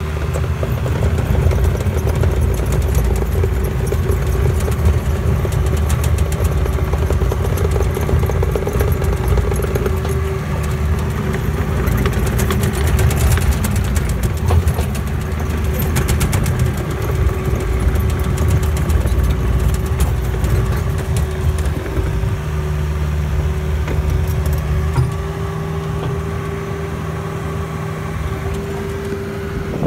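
Compact excavator's diesel engine running steadily with a constant hydraulic whine, heard from the operator's seat while the machine carries a boulder in its bucket and thumb. There is some rattling and clicking about midway, and the engine eases off slightly near the end.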